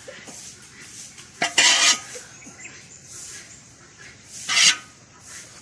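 Long metal spoon scraping against a big metal cooking pot while turning over cooked biryani rice. There are two loud scrapes, about a second and a half in and again near the end, with the soft shuffle of the rice between them.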